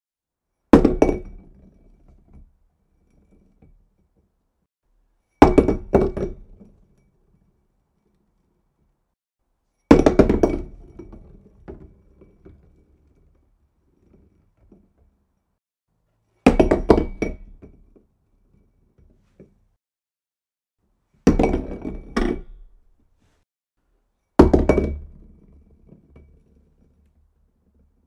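A glass object dropped onto a hard surface six times. Each drop lands with a sharp clink and thunk, bounces once or twice, then rolls with a low rattling rumble that fades out within a couple of seconds.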